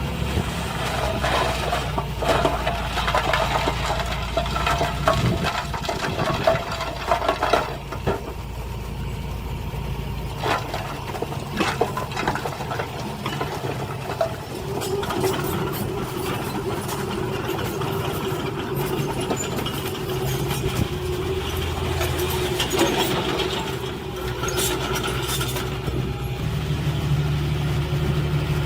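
Diesel engines of heavy earthmoving machinery running steadily, with scattered clanks and rattles in the first half and a steady hum from about halfway on.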